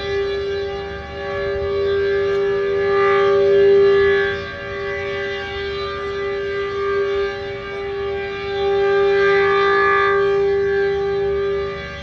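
H.O.R. Super Sirex 15 dual-rotor, dual-tone siren sounding at full speed, its two notes a tritone apart. The chord holds steady in pitch while it swells louder twice and eases back.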